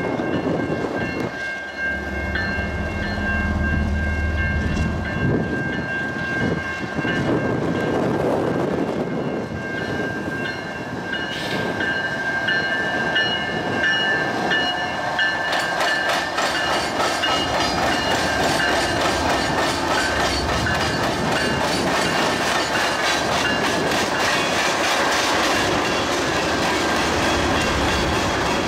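Canadian National freight train passing: the diesel locomotives' low rumble, then freight cars rolling by with a fast, rhythmic clatter of wheels over the rail from about halfway through. Steady high ringing tones run under the noise.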